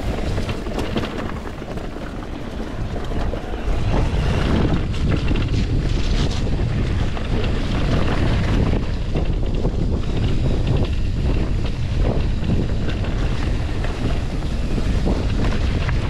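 Mountain bike descending a rough dirt downhill trail, with tyre rumble and knocks over the bumps under strong wind rush on the microphone. The rumble gets louder about four seconds in.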